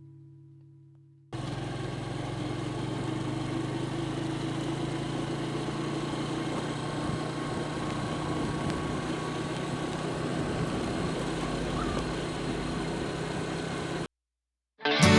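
Vehicle engine running steadily while driving on a dirt road, with a low hum under continuous road and rumble noise. It cuts in suddenly a second or so in and cuts off abruptly near the end.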